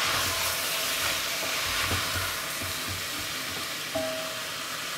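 Floured pieces of wild boar sizzling in butter and oil in an enamelled cocotte, with a wooden spoon stirring and knocking against the pot through the first half. A short ringing clink about four seconds in.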